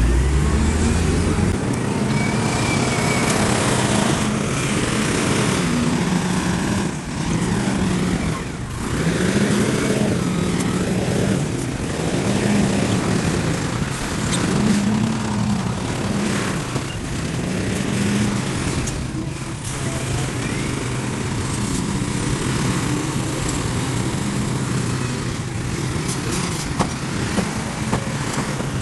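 Heavy earthmoving machine's diesel engine running under load, its pitch rising and falling every couple of seconds as the machine works, over a steady mechanical clatter. A deep rumble stops about a second and a half in.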